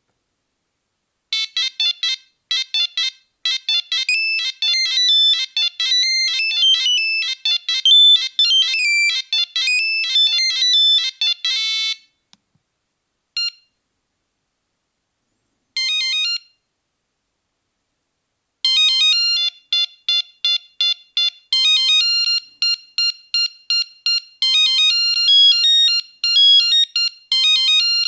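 Nokia 3310 monophonic ringtones: a melody of quick, bright beeping notes runs for about ten seconds, then after a pause come one lone beep and a short snippet. About two-thirds of the way through, another melody of rapid repeated beeps starts.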